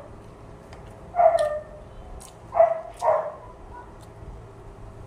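A dog barking three times in short calls that fall in pitch: once about a second in, then twice in quick succession around the middle.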